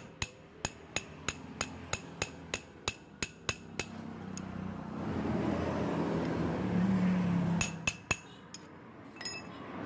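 Rapid metal taps, about three a second, as a bearing is driven onto the armature shaft of a Makita 9553 angle grinder using a length of pipe as a drift. The tapping pauses while a steady rushing noise swells and fades, then a few more taps come near the end.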